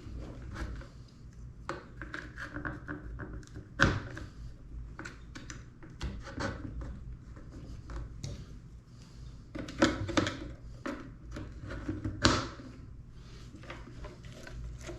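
Irregular clicks, taps and thunks of hands handling the drone's plastic body and parts during reassembly, with a few louder knocks about 4, 10 and 12 seconds in.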